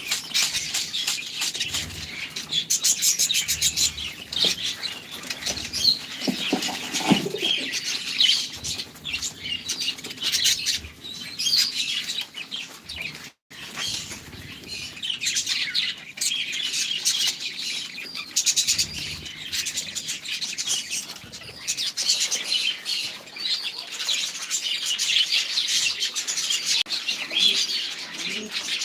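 Many small aviary birds chirping and twittering together without a break, with a lower call about seven seconds in.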